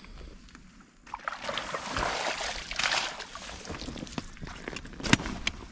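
Water splashing and sloshing, with the rustle of a wet weigh sling, as a small grass carp is let out of the sling back into the water.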